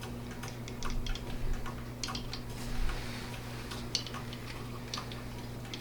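Small irregular clicks and ticks of hand-tightening the spring-loaded mounting screws on a CPU water block, over a steady low hum.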